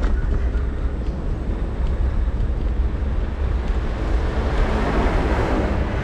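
Wind buffeting the microphone while riding an electric kick scooter, with a steady low rumble from the wheels rolling over pavement. A broader hiss grows louder about four seconds in.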